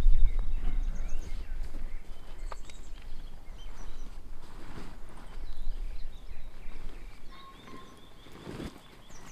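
Wind buffeting the microphone in gusts, strongest at the start and dying down, with small birds chirping in short high calls throughout.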